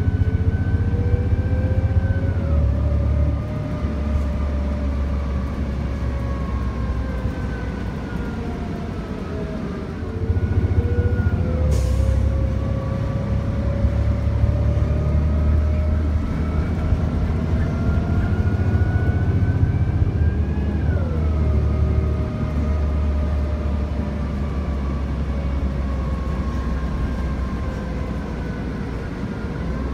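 City bus running, with a low engine rumble and a drivetrain whine that climbs slowly in pitch and drops back sharply three times, as the bus accelerates and shifts up through its gears. A short hiss about twelve seconds in.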